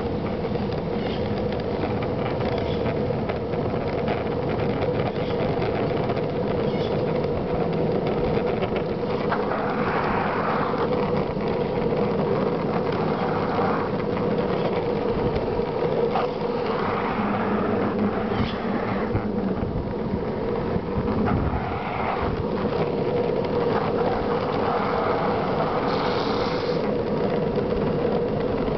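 Skateboard wheels rolling steadily over asphalt downhill, a continuous rumble with an even hum, heard close up from on the board.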